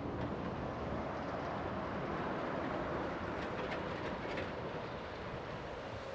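Volvo excavators' diesel engines running under work, a steady heavy rumble, with a few short clacks a little past the middle.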